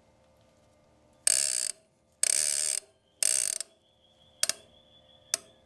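Hand-turned dividing head and its chuck on a milling machine: three short, grating metal-on-metal bursts about a second apart, then two sharp metallic clicks.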